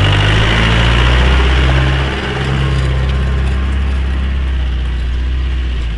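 Off-road 4x4 vehicle engine running steadily, with a slight drop in level about two seconds in.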